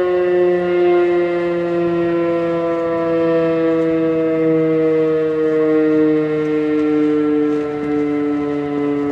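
Federal Signal Thunderbeam RSH-10A outdoor warning siren sounding a chord of several tones that slides slowly and steadily lower in pitch as it winds down.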